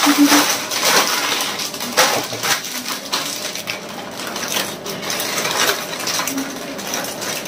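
Lay's potato chip packets crinkling and crackling as they are pulled and torn open by hand, a dense, irregular rustle of foil-lined plastic.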